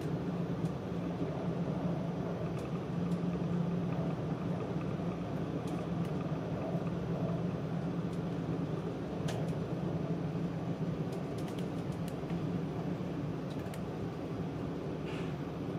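Steady running noise of an E4 series Max double-decker Shinkansen, heard inside the upper-deck passenger cabin: a low, even hum with a few faint ticks.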